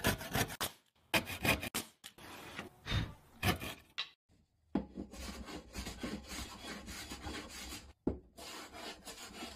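Hand plane cutting a fir board: a run of short separate strokes, then after a brief pause a denser stretch of continuous cutting, broken by a short gap near the end.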